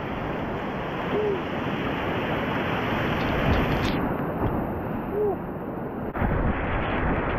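Rushing whitewater of a river rapid, a steady dense rush, with two short faint tones about four seconds apart.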